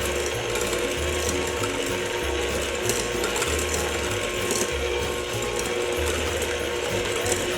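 Electric mixer running steadily, its motor and gears whirring as it beats egg yolks until frothy.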